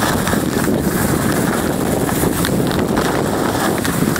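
Steady wind buffeting the microphone while skiing downhill, mixed with the hiss and scrape of skis sliding over packed snow.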